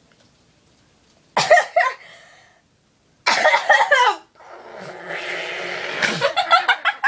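Three short spells of cough-like vocal noises from a person, with a quieter breathy stretch between the second and third.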